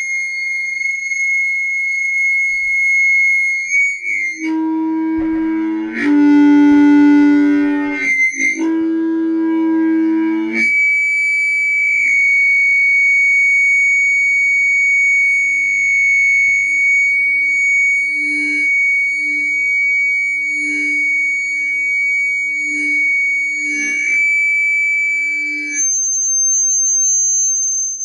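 Stereo audio feedback squealing through a loudspeaker: a steady high-pitched whistle drops to a lower howl a few seconds in, briefly returns, howls low again, then goes back to the high whistle. Near the end it shifts to a thinner, even higher tone, all over a faint low hum.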